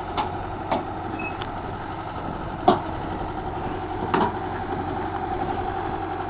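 Diesel engine of a John Deere 160C excavator running steadily as it comes down off a tilting trailer deck, with several sharp metal clanks. The loudest clank comes about two and a half seconds in.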